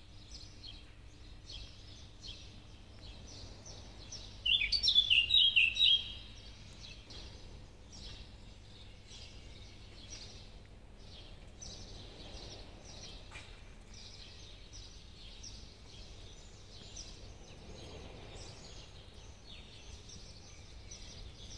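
Small birds chirping repeatedly in short calls, with one much louder, rapid run of chirps lasting about a second and a half, about five seconds in.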